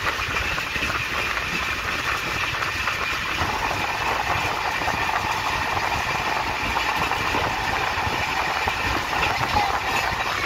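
Passenger train running at speed, a steady rumble of wheels on the rails heard from inside the moving coach.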